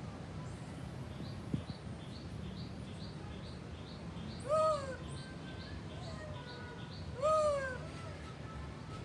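Two loud animal calls, each a short arched wail that rises and falls in pitch, about three seconds apart. Under them runs a steady series of short high chirps.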